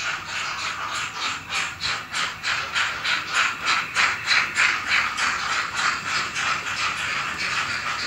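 Rhythmic steam chuffing from an N-scale model steam locomotive's sound, about three to four hissy chuffs a second, loudest around the middle.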